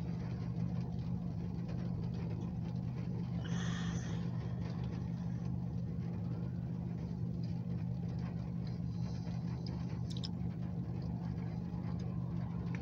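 A parked car idling, heard from inside the cabin as a steady low hum, with rain on the windshield. A short hiss comes about three and a half seconds in.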